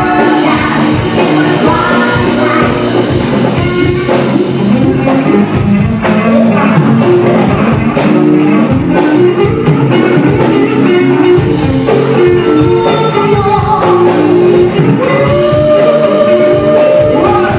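Live band playing a pop-rock song: a singer over electric guitar and bass guitar, loud and continuous, with a long held sung note near the end.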